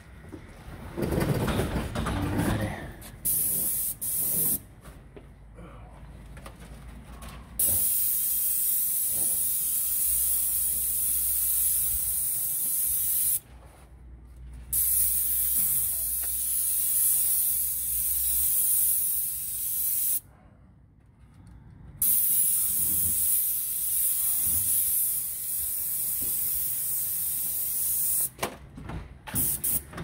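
Airless paint spray gun (Graco Ultra Max II 490 electric sprayer, 310 fine-finish tip at three-quarter pressure) hissing at the tip in a series of trigger-held passes of several seconds each, stopping briefly between passes. A louder, mixed noise comes in over the first couple of seconds.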